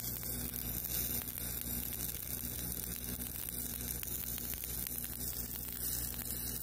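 Stick-welding arc burning on a 1/8-inch electrode: a steady crackling hiss, over a steady low hum.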